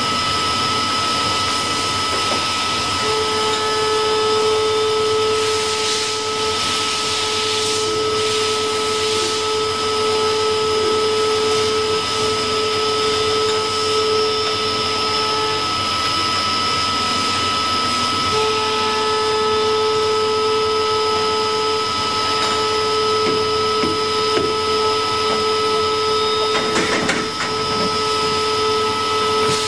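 CNC machine running, a steady whine over a noisy hiss. A lower steady tone comes in a few seconds in, breaks off near the middle for a couple of seconds and returns, like the cutter engaging the part.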